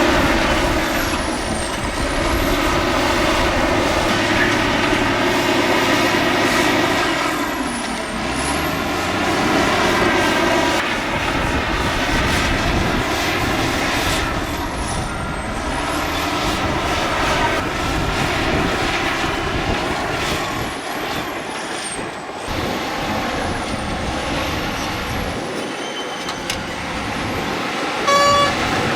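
Heavy diesel engines of a bulldozer and dump trucks working, a steady loud engine sound that swells and eases, with a short beep about a second before the end.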